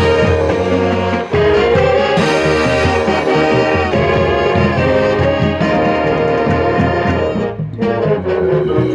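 Marching band playing, its brass section holding full sustained chords over a low beat, with a brief break in the sound about three-quarters of the way through.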